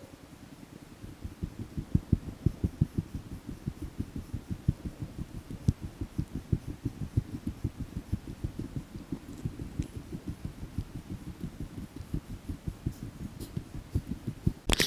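Muffled low thumps of a hiker's footsteps on a rocky dirt trail, several a second, carried through a body-worn camera while walking uphill. A sharp click just before the end.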